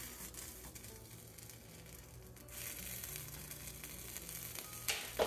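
Flour tortilla taco toasting in a dry nonstick frying pan: a faint sizzle that grows about halfway through, with a spatula pressing down on the taco and a short knock of the spatula on the pan near the end.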